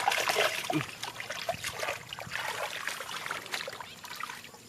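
Water splashing and trickling in irregular small splashes, loudest in the first second and dying down toward the end.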